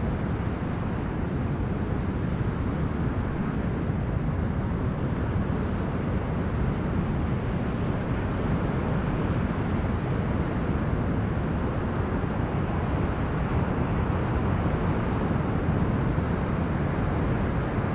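Strong storm wind and sea waves on a beach: a steady, dense rumble of wind and surf, with no single wave crash standing out.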